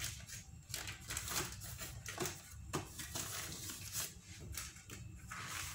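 Wax paper rustling and crinkling in irregular scratchy bursts as hands lift and smooth a sheet of rolled-out pastry dough on it.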